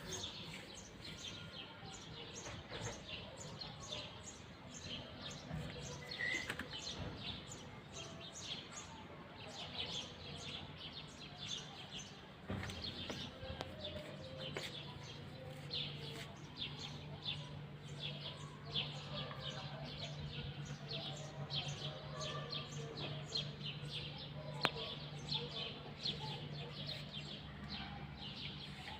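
A flock of small birds chirping continuously: many short, quick chirps overlapping one another. A low steady hum sits underneath from about halfway through.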